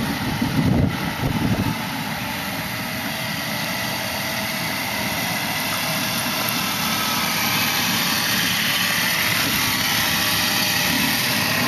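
Small motor scooter (moped) engine running as the scooter rides around at low speed, a steady engine drone with a louder, rougher stretch in the first second or two.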